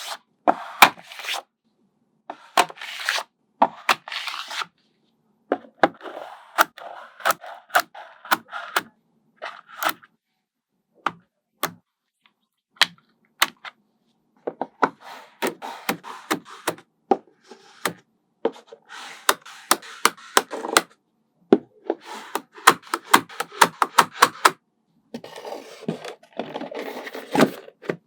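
Small neodymium magnetic balls snapping together with sharp clicks, mixed with scraping and rattling as clusters of balls are pushed and slid into place. The sounds come in irregular runs of clicks with short silent pauses between them.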